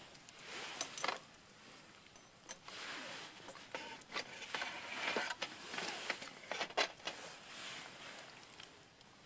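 Cooking gear and packaging being handled: rustling and scraping, with a few sharp clicks and knocks, the loudest about a second in and again near seven seconds.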